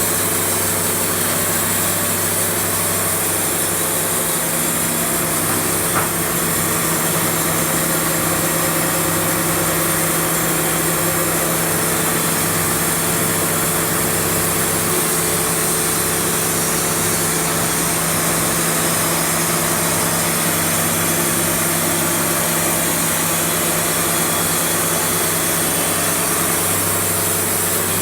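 Wood-Mizer LT70 band sawmill running steadily under load as its blade cuts through a log, with a short click about six seconds in.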